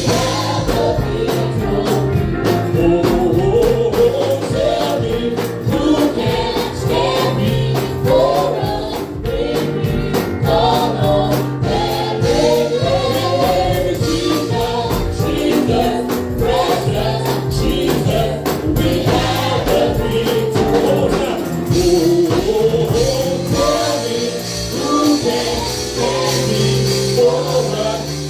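Gospel worship song with a group of voices singing over a band, with steady bass notes and frequent percussion strokes.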